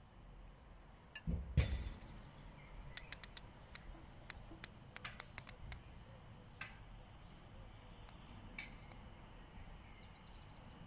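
Faint low rumble with a soft thump about a second and a half in, then a scattered run of light, sharp clicks that thins out toward the end.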